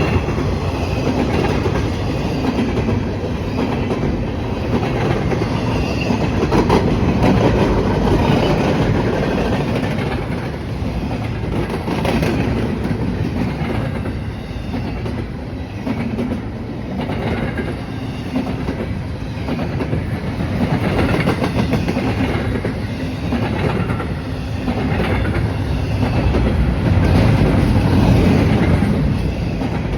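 A train rolling past steadily, its wheels clicking over the rail joints.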